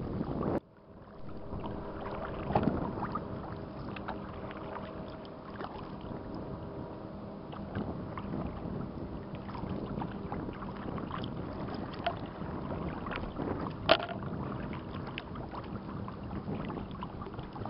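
Kayak paddling on open water: paddle strokes splashing and water lapping against the hull, with a few sharp knocks, the loudest late on. A faint steady hum sits under it in the first half.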